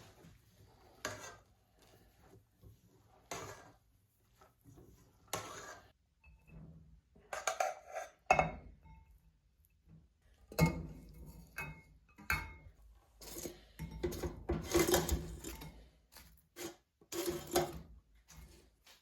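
Kitchen clatter of dishes, pans and cutlery: irregular knocks and clinks, a few ringing briefly, sparse at first and busiest in the last few seconds.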